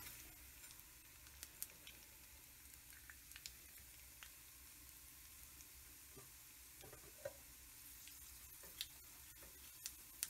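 Faint sizzle of sesame oil frying a tempering of dried red chilies, mustard and fenugreek seeds and urad dal in a stainless steel pan. Scattered sharp pops crackle through it, the clearest near the end.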